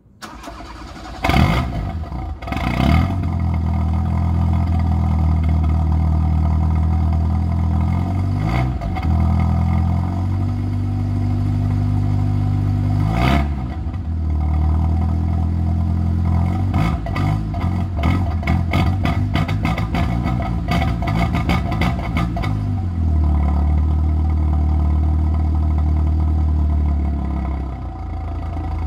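Tofaş Doğan SLX i.e.'s four-cylinder engine starting from cold, catching about a second in, then running through a loud 'pırpır' aftermarket exhaust. It settles to a steady idle broken by throttle blips: single ones a few seconds apart, then a quick run of revs in the middle, before idling again.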